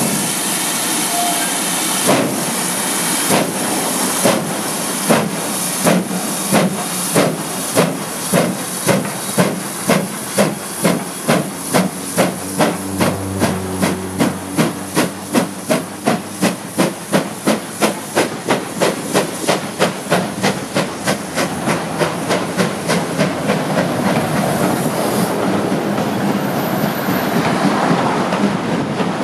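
GWR 5101 class two-cylinder 2-6-2 tank engine no. 5199 starting away with a train: sharp exhaust beats, about a second apart at first and quickening to two or three a second, over a steady steam hiss. Near the end the beats give way to the rumble and clatter of the coaches rolling past.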